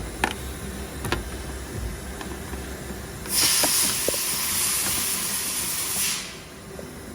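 A couple of small clicks, then a loud, steady hiss that starts abruptly a little over three seconds in, lasts about three seconds and cuts off sharply.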